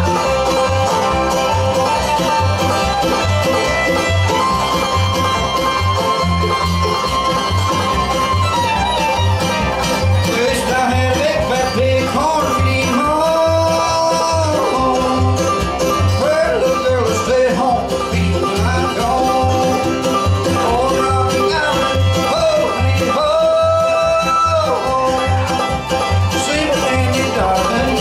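Live bluegrass band playing: banjo picked clawhammer style, with fiddle, mandolin, two acoustic guitars and an upright bass keeping a steady beat.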